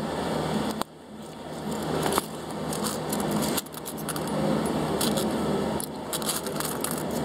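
Inside of a city bus: the engine hums low under a dense noise with many small rattles and clicks. The level drops sharply about a second in and shifts abruptly a couple more times.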